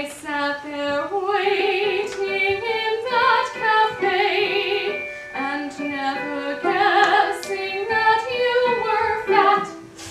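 A woman's soprano voice singing a quick passage of many short notes, broken by a few held notes with vibrato.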